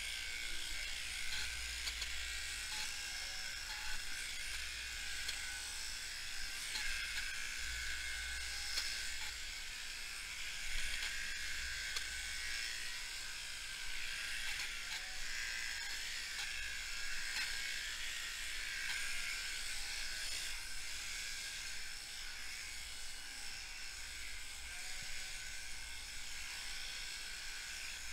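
Electric sheep-shearing handpiece fitted with a 588 comb and cutter, running steadily as it shears a ewe's fleece: a continuous buzz over a low hum.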